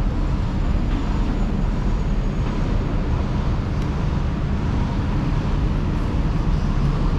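Street traffic ambience: a steady low rumble of vehicles, with no distinct single event standing out.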